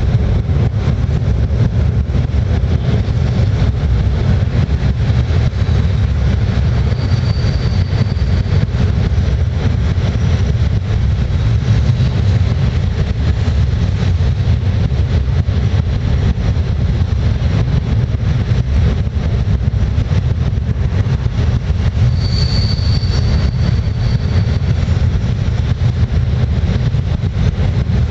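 Passenger train running at speed over a steel truss bridge, a steady low rumble of wheels and track heard from inside the carriage. A short, faint, high whine rises above it twice.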